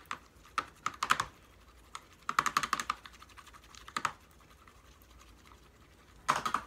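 A black utensil stirring a runny white glue-and-laundry-detergent mixture in a plastic tub, clicking and tapping against the tub in short bursts of quick clicks with pauses between. The mixture is still thin and has not turned into slime.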